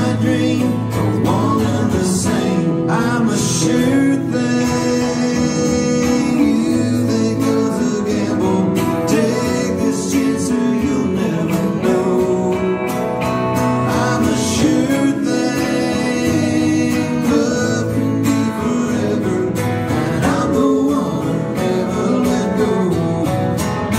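Live country band playing a song: strummed acoustic guitar with electric guitar and keyboard, and singing over it, going without a break.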